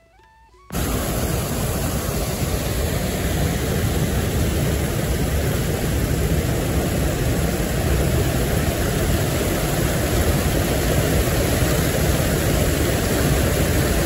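Water pouring over the edge of a stone check dam and crashing onto rocks below, a loud steady rush that cuts in suddenly about a second in.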